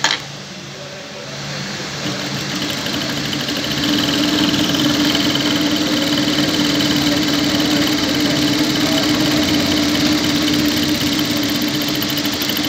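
Lockstitch sewing machine fitted with a P952 gathering foot, stitching and ruffling cloth. It starts running about two seconds in, picks up to full speed about four seconds in and then runs steadily. There is a sharp click at the very start.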